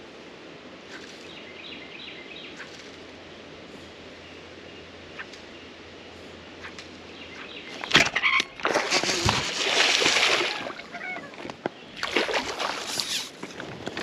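A hooked bass splashing and thrashing at the water's surface as it is fought to the boat, in two loud bursts, the first starting suddenly about eight seconds in and the second about twelve seconds in. Before that there is only a low, steady wash of river ambience.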